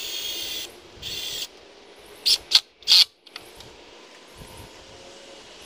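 Power drill driving screws into wooden 1x4 boards: two whining runs of about half a second each, then three short, louder bursts a little over two seconds in.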